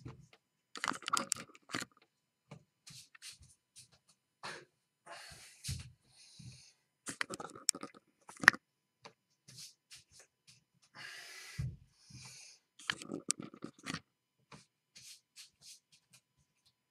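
Irregular knocks, clicks and rustling as the camera and things beside it are handled at close range, with the sharpest knock about eight and a half seconds in.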